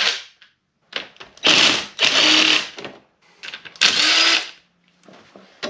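Cordless impact gun with a 13 mm socket zipping out valley cover bolts on an LS1 V8: the tail of one burst of rapid hammering, then two more bursts, the first about a second and a half long and the second about a second.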